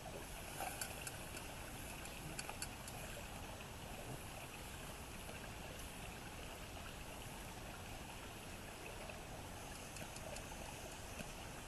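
Faint steady hiss of a mess-kit pot cooking over a campfire. A few light clicks and rustles come about a second in and again near the end, as diced meat and onion are scraped in from a plastic bag.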